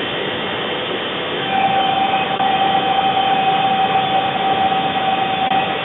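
Kubota compact tractor running with its front-mounted snowblower, heard from inside the enclosed cab: a steady mechanical din, with a high whine coming in about a second and a half in and holding.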